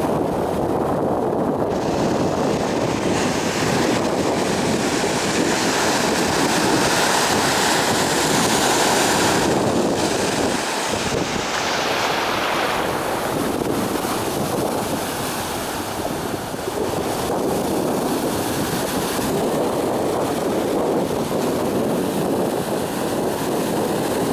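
Red Sea surf breaking and washing ashore, with wind buffeting the microphone. A bright, hissing wash of surf fills the first half and eases off a little after about twelve seconds.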